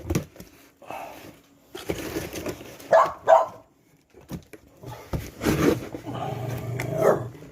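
A dog barking indoors: two short, sharp barks about three seconds in, with stretches of rustling noise around them.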